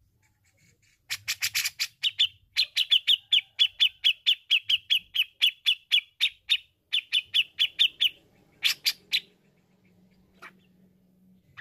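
Grey-cheeked bulbul (cucak jenggot) calling in a fast, even run of sharp notes, about four a second, each dipping slightly in pitch, kept up for about seven seconds with one brief break. A few harsher, louder notes follow near the end.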